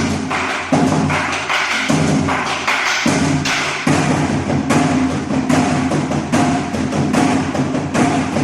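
Nanta drumming on Korean drums, playing the gicha jangdan (train rhythm) pattern as fast, steady, evenly repeating strokes.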